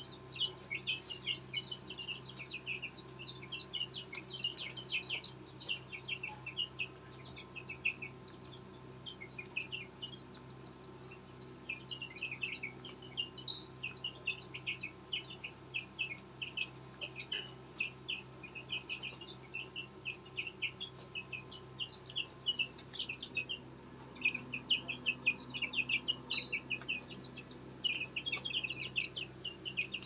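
A group of young aseel chicks cheeping continuously, many short high-pitched peeps a second, over a faint steady hum.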